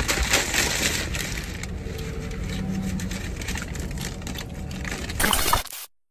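Paper fast-food bag crinkling and rustling as it is handled and folded, over the low hum of a car interior. The sound cuts off suddenly to silence near the end.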